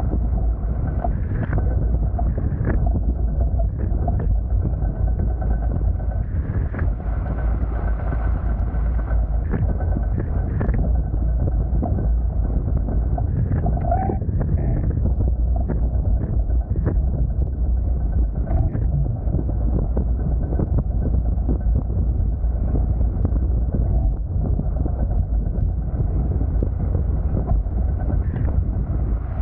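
Wind buffeting the camera microphone over the rush of water along the hulls of a Hobie Tiger F18 catamaran under sail, a steady noise broken by brief sharp splashes.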